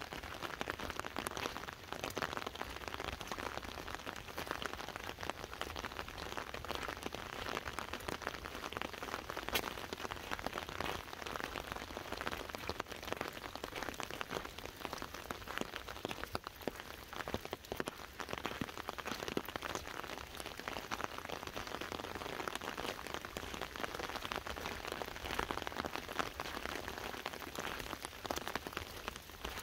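Rain drumming on an open umbrella overhead: a steady, dense patter of drops with no pause.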